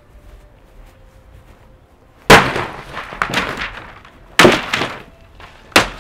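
A framed picture being smashed to pieces: three loud crashing blows about two seconds apart, the first the loudest, each trailing off in a clatter of breaking pieces.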